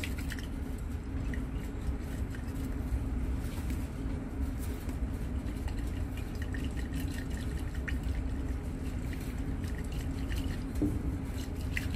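Milky suspension swirled by hand in a glass Erlenmeyer flask, the liquid sloshing faintly with small clicks of glass, over a steady low hum.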